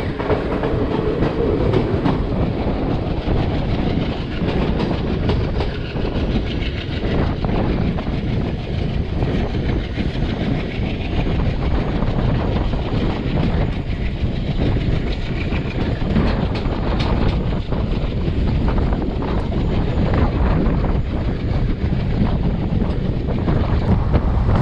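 Express passenger train running along the track, heard from on board: a steady rumble of wheels on rail with continual clickety-clack clatter.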